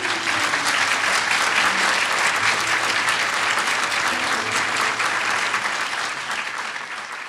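Audience applauding: a dense wash of clapping that breaks out at once and holds steady, thinning out near the end.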